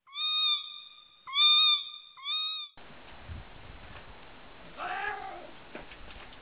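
Three clear, high cat meows in quick succession, each rising then falling in pitch, the second the loudest. They end sharply before three seconds in, giving way to a low background hiss with a fainter short call about five seconds in and a few light clicks near the end.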